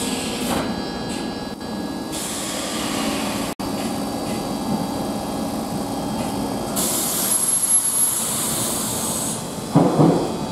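Odakyu commuter electric train rolling along the platform: a steady run of wheel and motor noise. A thin high-pitched squeal sounds for a couple of seconds in the second half, and a few uneven rumbling bursts come near the end.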